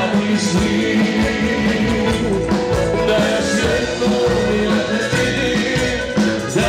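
Live band playing upbeat dance music with a male singer and a steady beat.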